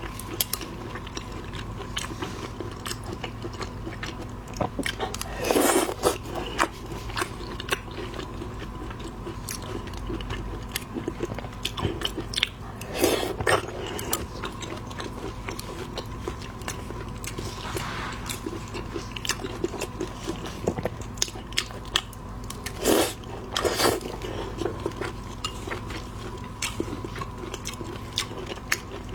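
Close-miked eating of shrimp: steady chewing and biting with many small crackling clicks, and a few louder crunching bursts spread through the stretch.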